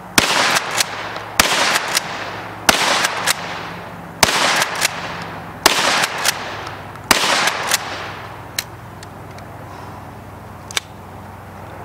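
Smith & Wesson 916A 12-gauge pump-action shotgun firing high-brass shells: six loud shots about a second and a half apart, with a couple of sharp clacks between each as the pump is worked. The shooting stops a little past halfway, leaving only two faint clicks.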